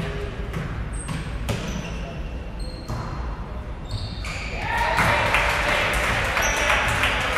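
Basketball bouncing on a hardwood gym floor, with sharp knocks, short high sneaker squeaks and voices echoing in the large hall. About four and a half seconds in, shouting voices swell and stay louder.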